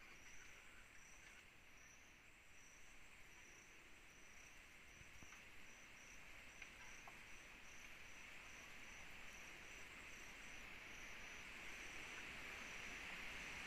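Night insects: a cricket-type insect chirping in a steady series of short, high chirps over a faint hissing insect chorus that grows louder toward the end.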